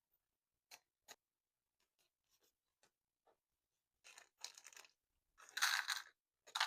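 Paper being handled: a few light clicks, then rustling and scraping in short spells, loudest in the last couple of seconds.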